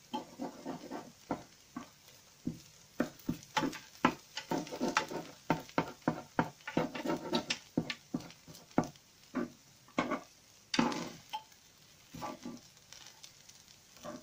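Spatula stirring and scraping fried rice in a frying pan, many quick clacks and scrapes against the pan over a light sizzle, with the egg just added. The strokes thin out near the end.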